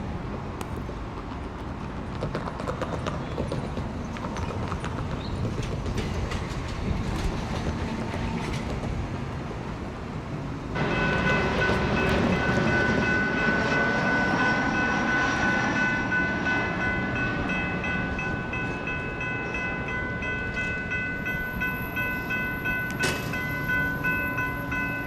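Metro light rail train creeping toward a level crossing. About eleven seconds in, a steady high ringing of several tones starts abruptly and keeps on: the crossing's warning bells activating.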